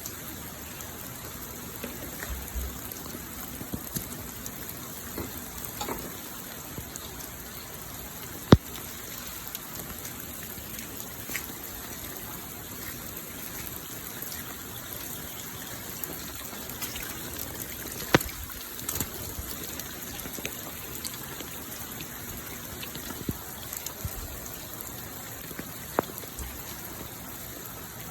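Heavy rain falling steadily as an even hiss, with scattered sharp taps of drops striking a hard surface, a couple of them much louder than the rest.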